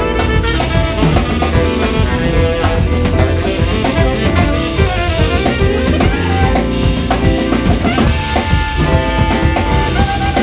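Live jazz quartet playing: a busy drum kit with rimshots and bass drum, over bass, piano and tenor saxophone.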